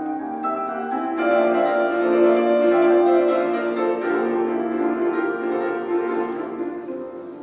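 Background piano music with slow, held notes, swelling a little in the middle.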